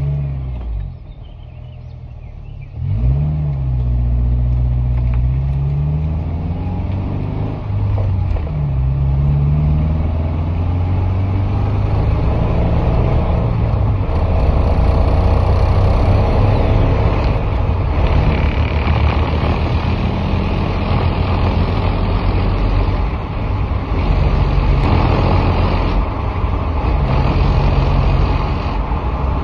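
2012 Subaru Forester's flat-four engine accelerating the car from a pull-away: its pitch rises and drops a few times in the first ten seconds or so, then it settles into steady engine and road noise at speed. The car shakes under acceleration, and the owner can't tell whether a CV axle, the driveshaft or a misfire is to blame.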